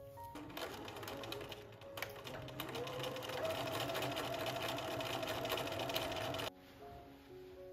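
Bernina electric sewing machine stitching a seam closed. The motor speeds up with a rising whine about three seconds in, runs steadily, then stops abruptly near the end.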